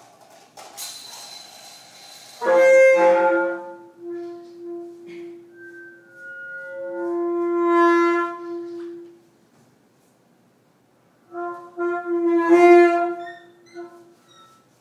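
Saxophone improvising: a breathy hiss first, then long held notes with a rich overtone stack, one swelling note about eight seconds in. After a pause of about two seconds come short repeated notes on the same pitch.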